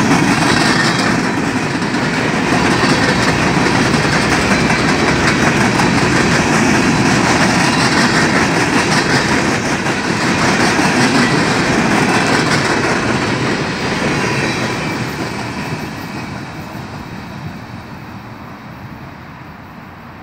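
Coal train's gondola cars rolling past, steel wheels running on the rails. About fifteen seconds in, the end of the train goes by and the sound fades steadily as it moves away.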